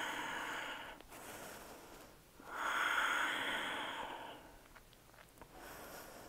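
A woman breathing deeply and audibly: one long breath trails off about a second in, a second long breath follows from about two and a half to four and a half seconds in, and a fainter one comes near the end.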